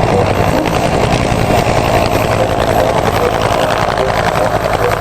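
Helicopter rotor sound, a loud, steady, fast chopping with engine noise under it.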